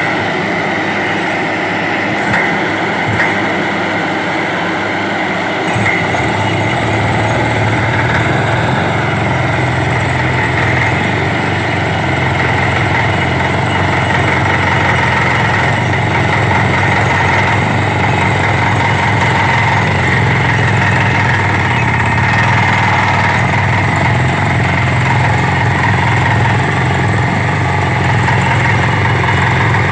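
Borewell drilling rig running steadily. Its low engine note gets heavier about six seconds in, with a few short clicks in the first few seconds.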